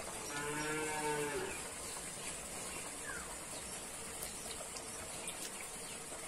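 A cow mooing once: one steady, even-pitched call of a little over a second, starting just after the start, over a faint background.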